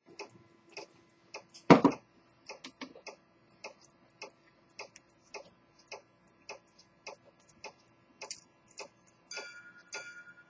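Steady ticking of a clock, a little under two ticks a second, with one loud handling knock about two seconds in. Near the end a brighter, ringing metallic chatter starts up over the ticking.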